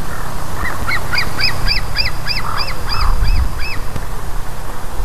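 Eaglet calling out of sight of the nest: a run of about ten rising-then-falling high-pitched notes, roughly three a second, over a steady low rumble.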